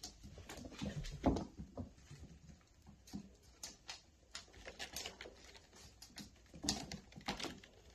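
Kittens scuffling and playing on a hardwood floor: irregular light thumps, scrapes and paw patter, loudest about a second in and again near the end.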